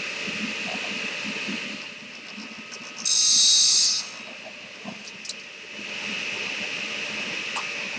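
Table saw running, with a loud, high-pitched hiss lasting about a second, about three seconds in, as the blade cuts through a wooden dowel.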